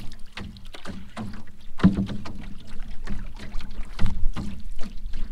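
Paddling a lightweight canoe: water splashing and slapping against the hull with irregular knocks from the paddle strokes, over a steady low rumble.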